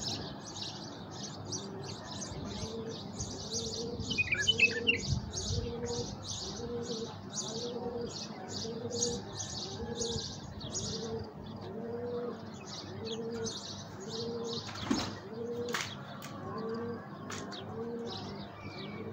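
A dove cooing in a steady, evenly repeated rhythm under continuous rapid high-pitched chirping of small birds. A brief flurry of brighter, clearer bird notes comes about four seconds in.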